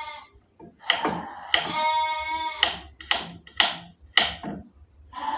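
A goat bleating: one long call of just over a second in the middle, and another starting at the very end. Between the calls come several sharp knocks of a small knife cutting against a wooden board.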